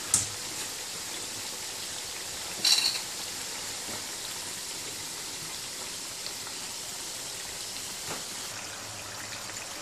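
Churro dough frying in a pan of hot oil: a steady sizzle, with one brief louder sound about three seconds in.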